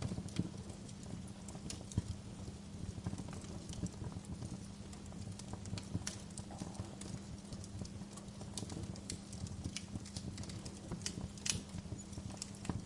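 Wood fire crackling: irregular sharp pops and snaps over a low steady rumble, with a louder pop about two seconds in and another near the end.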